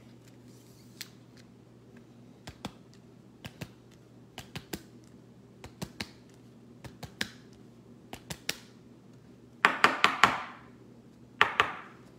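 Scattered light clicks and taps, often two or three close together, then two louder, longer scratchy noises near the end, each about half a second. A faint steady hum runs underneath.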